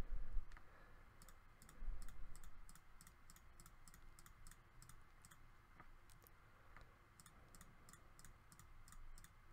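Computer mouse clicking in quick runs, about three clicks a second, with a pause in the middle, as facets are picked one at a time. A couple of low thumps come near the start and about two seconds in.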